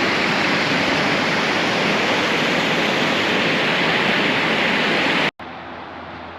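Steady loud rush of falling water from Multnomah Falls. It cuts off abruptly about five seconds in, giving way to a much quieter background with a low hum.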